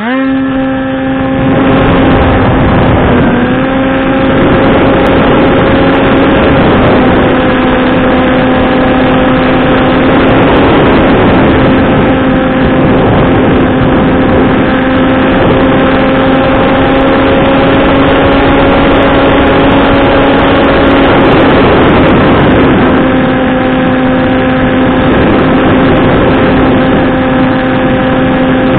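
Skywalker Falcon FPV flying wing's electric motor and propeller running steadily in flight, heard from the onboard camera as a steady droning tone over rushing air noise. The pitch rises at the start, dips briefly about three seconds in as the throttle changes, then holds.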